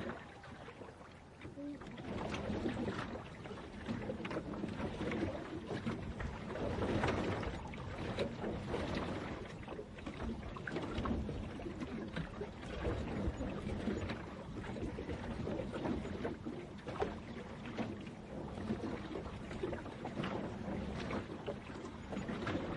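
Water sloshing and lapping, rising and falling in uneven swells every couple of seconds.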